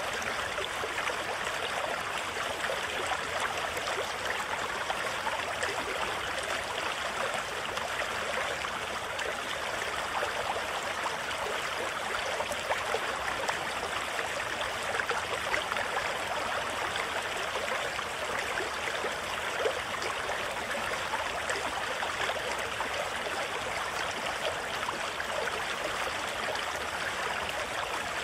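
Steady rush of white-water rapids, the river running fast over boulders with no letup.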